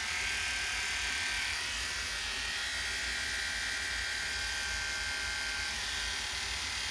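Electric dog grooming clippers with a #40 blade running with a steady buzz, clipping a Bedlington terrier's ear against the lie of the coat (reverse clipping).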